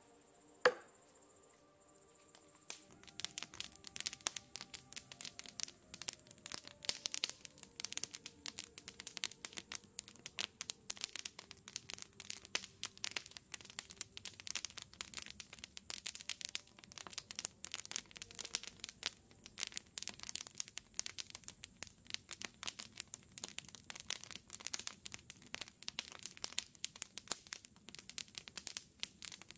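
A single sharp click about a second in, then dense, irregular crackling and crinkling that keeps going.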